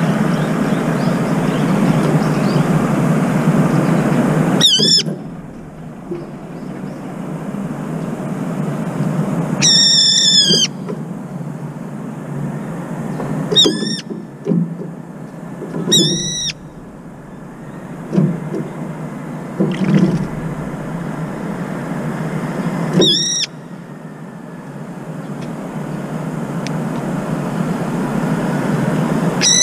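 Brown-eared bulbul giving loud, shrill, harsh calls, six in all, each under a second. It shrieks like this each time it comes out of its cold-water bath. A steady low rumble fills the first few seconds and builds again toward the end.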